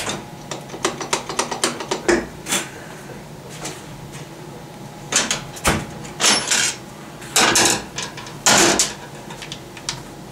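Metal parts of a Subaru Lineartronic CVT being worked loose and handled during teardown: many light metallic clicks and knocks, with four louder short scrapes in the second half.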